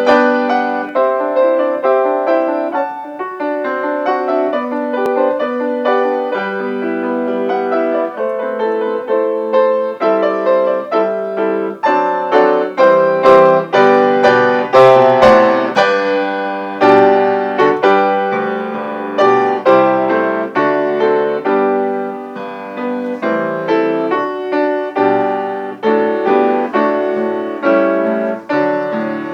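Solo piano playing a flowing postlude, many quick notes over a moving bass, growing louder about halfway through.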